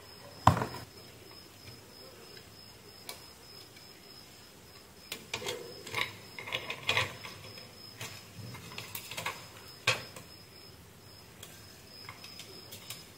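Small handling clicks and taps of a screwdriver and fingers on an LED driver board and its wires: one sharp click about half a second in, a run of taps and clicks around the middle, and another click near ten seconds. A faint steady high whine runs underneath.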